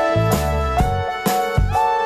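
Background music: held melodic notes that step from pitch to pitch over a steady beat of about two strokes a second.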